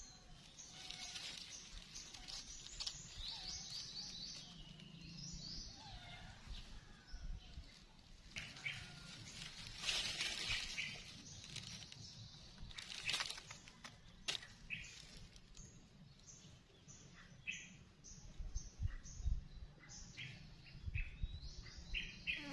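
Birds chirping over and over in short high calls, with dry leaf litter rustling briefly a couple of times near the middle.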